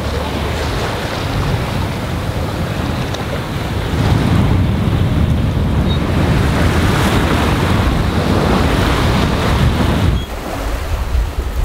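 Wind buffeting the microphone over the rush and splash of water along a sailboat's hull, moving at about seven knots in a stiff breeze. The noise is loud and steady, then drops off suddenly about ten seconds in.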